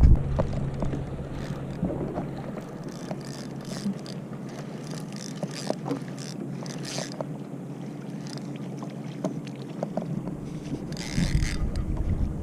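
Small knocks and water sounds around a kayak on the water, over a faint steady low hum, with a louder rush about eleven seconds in.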